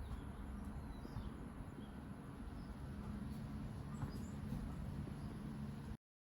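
Outdoor garden ambience: a few faint, brief bird chirps over a steady low rumble and a thin, steady high-pitched hiss. All sound cuts off abruptly near the end.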